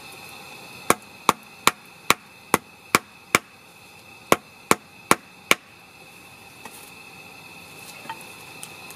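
A hatchet knocking a wooden leg into a hole augered in a half-round dried black cherry log, driving the tenon tight into its mortise. Eleven sharp wooden knocks, seven in a quick even run at about two and a half a second, then after a short pause four more.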